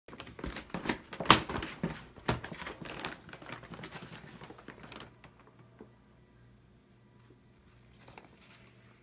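Kraft paper bag rustling and crinkling in quick, irregular crackles, loudest about a second in, stopping about five seconds in.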